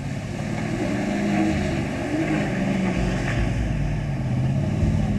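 Chevrolet pickup truck's engine revving while the truck spins donuts in mud, its note rising and falling as the driver works the throttle.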